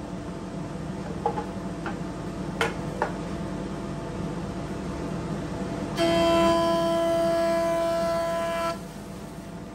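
Axminster planer-thicknesser running with a steady hum, with a few light knocks in the first few seconds. About six seconds in, a louder pitched whine starts as a thin strip of hardwood is fed over the cutterhead and face-planed; it lasts nearly three seconds and cuts off sharply as the cut ends.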